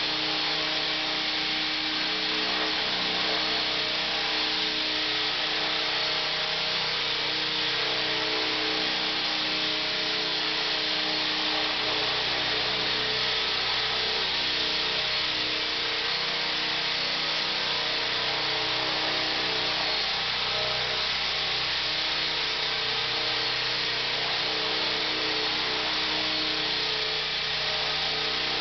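ESKY Belt-CP electric RC helicopter hovering: the steady whine of its motor and gears over the rotor noise, holding an even pitch throughout.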